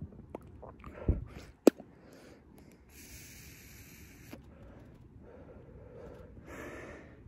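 A thump and a sharp click, then a steady hiss of about a second and a half and a breathy exhale near the end: a person drawing on a cannabis vape pod and breathing the vapour out.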